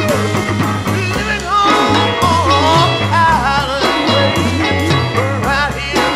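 1966 psychedelic rock recording with a steady driving beat, a bass line stepping from note to note, and wavering, bending melody lines above.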